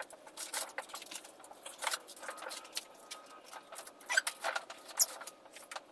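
Irregular scraping and clicking as a battery module of cylindrical lithium cells is pushed and slid into its metal case.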